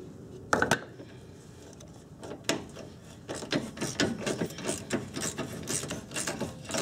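A single knock just over half a second in. Then a hand ratchet clicks in quick strokes, about four a second, as it backs out the lower strut bolt.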